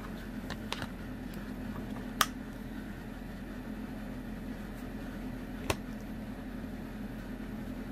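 Steady low background hum, with light clicks and taps from a phone in a plastic case being handled; two sharper clicks stand out, about two seconds in and near six seconds.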